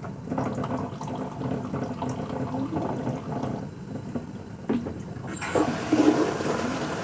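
Water suddenly starts rushing about five seconds in and keeps running steadily, after a few seconds of low, indistinct background sounds.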